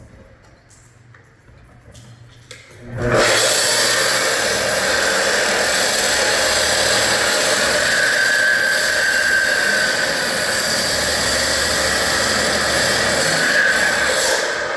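Electric saw cutting a door opening into a wall: after a few light knocks it starts abruptly about three seconds in and then runs at a steady, loud pitch through the cut.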